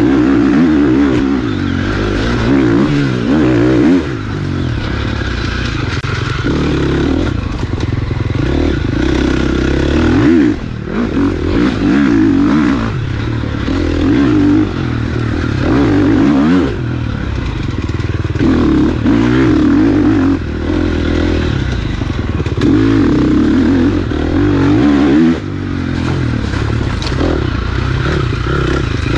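Dirt bike engine being ridden hard, revving up in bursts of one to three seconds and dropping off again over and over as the throttle is opened and closed.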